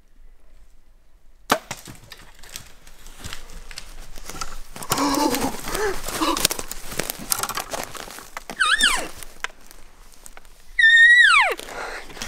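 A compound bow shot breaks the silence about a second and a half in, followed by a bull elk crashing away through timber and deadfall, with branches snapping and brush rustling. Near the end come two high squealing calls that slide down in pitch, the second one loud.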